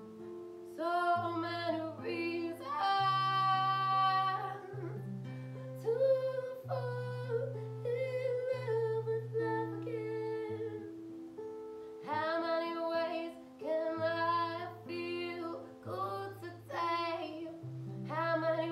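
A woman singing a slow song to guitar accompaniment, holding some long notes.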